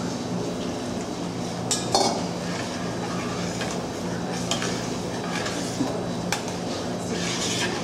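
Kitchen utensils clinking and scraping against pots and dishes, with a few sharp clinks, the loudest about two seconds in, over a steady low hum.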